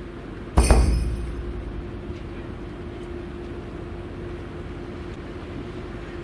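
A steady outdoor hum with one low tone held throughout. About half a second in comes a sudden loud thump that dies away over about a second.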